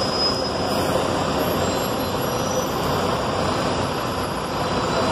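Heavy rain pouring onto a flooded street, a steady rushing hiss of rain and water.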